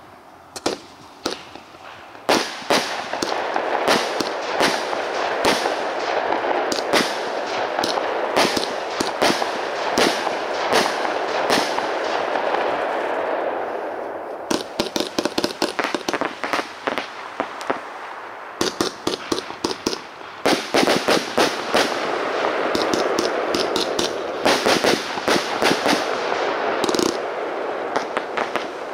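Argento Picasso 49-shot firework cake (20–30 mm calibre) firing: a long run of sharp shots over a continuous hiss. In the second half the shots come in rapid flurries, with brief lulls between them.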